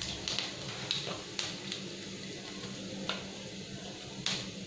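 Panch phoron spice seeds frying in hot mustard oil: a steady sizzle with scattered sharp pops as the seeds crackle and splutter, the tempering (tadka) stage of the dish.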